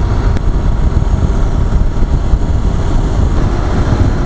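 Motorcycle cruising on a highway, heard from the rider's position: a steady, loud rush of wind on the microphone mixed with engine and road noise.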